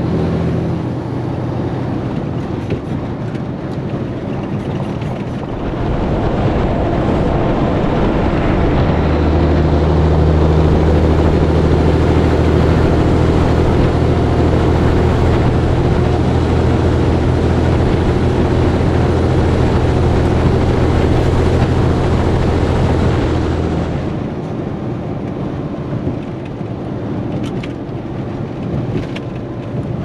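Peterbilt 362 cabover semi-truck cruising on the highway: steady diesel engine drone and road noise from the cab. From about six seconds in until about twenty-four seconds it is louder, with wind rushing over a camera mounted outside behind the cab.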